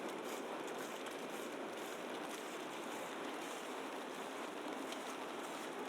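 Steady rushing ambience of a wet, snowy city street, an even watery hiss with a few faint ticks.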